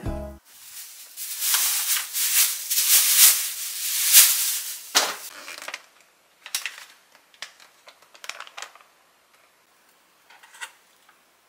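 Plastic food packets crinkling and rustling as they are handled, for about five seconds, followed by a few light clicks and taps of plastic.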